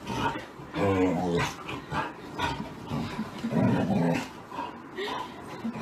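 Husky growling and yowling in rough play: a string of short vocal bursts, with a pitched, wavering call about a second in.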